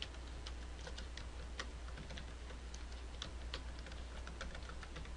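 Computer keyboard keys clicking faintly and irregularly as a short phrase is typed, with a low steady hum underneath.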